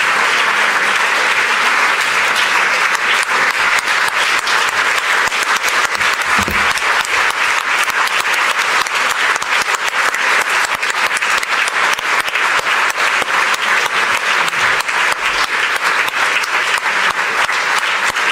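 Audience applauding, one long unbroken round of clapping.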